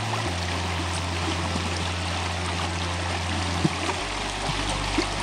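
Gauchach river rushing through its gorge: a steady, even rush of water.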